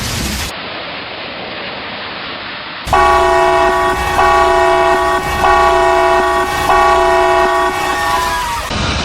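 Multi-chime air horn, like a train horn, sounding a chord in about four long blasts run together, its pitch sagging as it cuts off near the end. Before it comes a few seconds of steady, rain-like noise.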